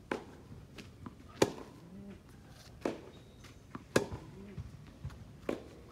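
Tennis ball struck back and forth with racquets on a hard court during a rally, a sharp pop of strings or bounce about every one and a half seconds, some much louder than others.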